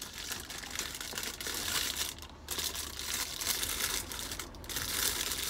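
McDonald's burger paper wrapper crinkling as it is unfolded and pulled back from the burger, in several short spells of rustling.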